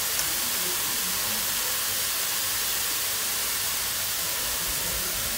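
Grated carrot, spring onion and celery frying in a little oil in a wok, giving a steady, even sizzle.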